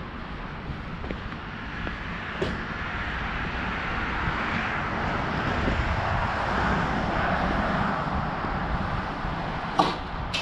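Outdoor background noise with a low rumble, swelling over several seconds and easing off, with two sharp clicks, one early and one near the end.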